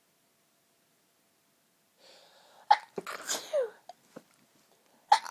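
A woman sneezing in a sneezing fit. An audible intake of breath comes about two seconds in, then a sudden burst and a voiced 'choo' that falls in pitch. A second sneeze bursts out near the end.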